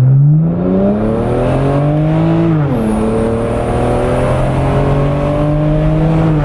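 BMW N54 twin-turbo straight-six under hard acceleration. The engine note climbs steadily, drops sharply at a gear change about two and a half seconds in, then climbs again more slowly in the next gear and falls off near the end.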